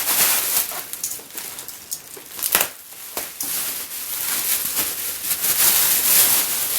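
Packaging being opened by hand: irregular rustling and crinkling, with one sharp crackle about two and a half seconds in and denser, louder rustling in the second half.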